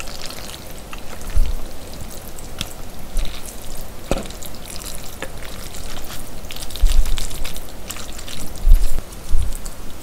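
Wet, crackly squelching of saucy spaghetti being stirred, tossed and twirled with a wooden fork on a plate, close to the microphone, with a few low knocks of the fork and plate.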